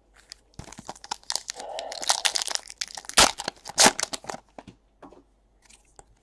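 Trading-card packaging and cards being handled: a run of crinkling, crackling and rustling over about four seconds, loudest about three seconds in, then a few light ticks.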